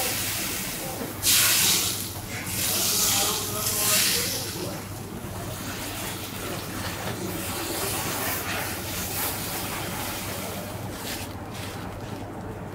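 Food sizzling on a hot cooking surface, a continuous frying hiss, with two loud bursts of hiss about a second and three seconds in.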